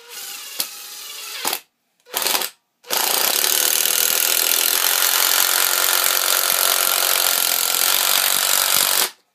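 Makita LXDT06 18V cordless impact driver driving a 4-inch screw: the motor spins briefly, a short second pull of the trigger follows, then the impact mechanism hammers steadily for about six seconds as the long screw is driven home, and it cuts off suddenly near the end.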